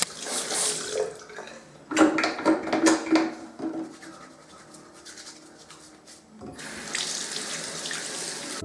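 Bathroom mixer tap running into a ceramic sink while hands are rinsed under the stream, with splashing. The flow drops away for a few seconds in the middle and comes back on as a steady running stream about six and a half seconds in.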